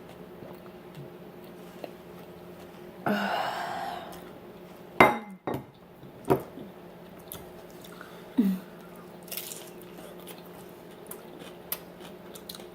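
Eating at close range: cutlery knocking against a plate in a few sharp clinks, with a short rasping crunch about three seconds in and chewing between.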